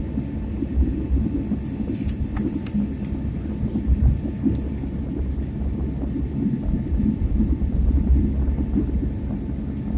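Steady low rumble of airliner cabin noise, the engines and airflow heard from inside the plane, with a few faint rattles about two seconds in.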